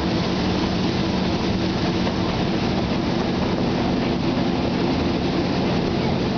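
Narrow-gauge forest railway train running along the line, heard from on board: a steady low engine hum under continuous rolling wheel and track noise.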